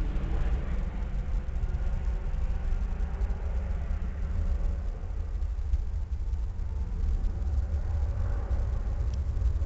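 Jet engines of an Airbus A320-232, IAE V2500 turbofans, at climb power as the airliner climbs away after takeoff: a steady low rumble.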